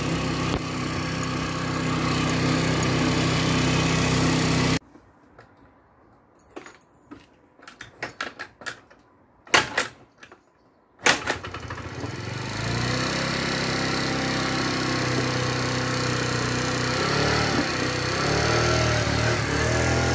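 Small Chinese scooter engine running, then breaking off abruptly about five seconds in. A few seconds of quiet with several knocks and clicks follow. The engine comes back and revs up and down as the scooter pulls away.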